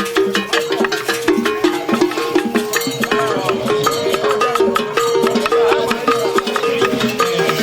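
Music with percussion: a melody of short, quickly repeated notes over a steady, busy beat.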